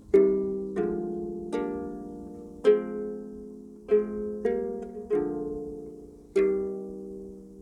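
Double diatonic harp being plucked by hand: a slow series of about eight notes and chords, each struck sharply and left to ring and fade before the next.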